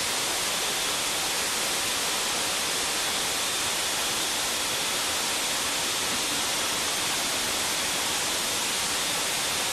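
Steady hissing rush of firefighting inside a diesel-fuelled engine-room fire trainer: fire-hose water spray and burning fuel, continuous and unchanging.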